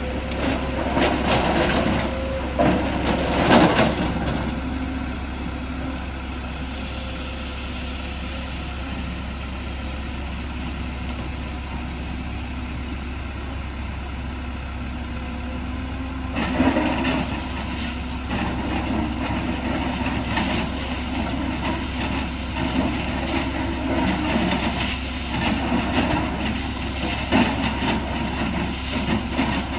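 Excavator diesel engine running steadily while its bucket scrapes and clatters against rock and loose stone. The clatter comes in spells, near the start and again from about halfway through, with the engine alone in between.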